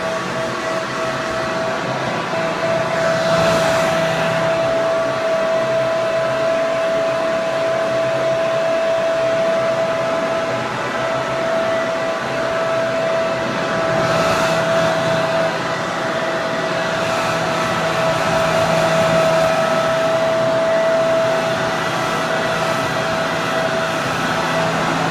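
Hair dryer running continuously: a steady rush of blown air with a constant motor whine, swelling slightly now and then.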